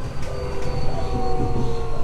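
Tokyo Metro 03 series subway train running, heard from inside the car: low rumble under a motor whine made of several tones that fall gently in pitch, with a couple of sharp clicks about a quarter and two-thirds of a second in. The falling pitch fits the train slowing on its approach to a station.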